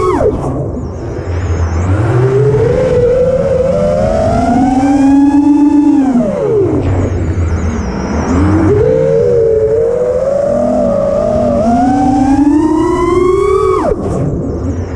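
FPV quadcopter's brushless motors whining under changing throttle. The pitch drops sharply right at the start, climbs slowly, falls about six seconds in, climbs again and drops sharply near the end, as the throttle is cut for flips and dives.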